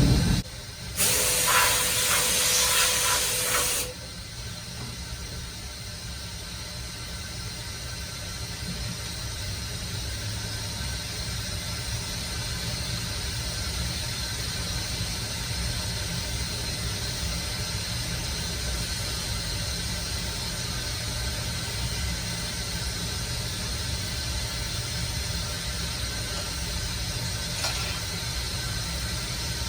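CNC milling machine running a cutting cycle on an aluminium part. A loud hiss lasts about three seconds near the start, then cuts off abruptly, leaving a steady low machine hum with faint hiss.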